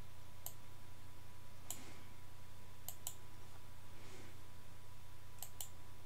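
Computer mouse clicking: two single clicks in the first two seconds, then two quick pairs of clicks, one near the middle and one near the end, over a steady low electrical hum.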